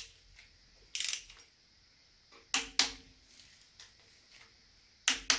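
Torque wrench clicking as the camshaft retainer plate bolts on a Pontiac V8 block are tightened to 20 ft-lb: five sharp metallic clicks, two of them in quick pairs, each with a brief ring.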